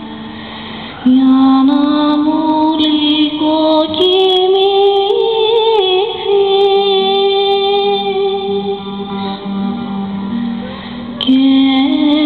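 Slow music: a woman's singing voice holds long notes that step up and down over a steady low note, coming in loudly about a second in.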